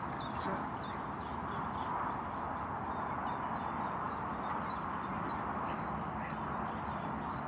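Small birds chirping over and over, short quick high notes, against a steady rushing outdoor background.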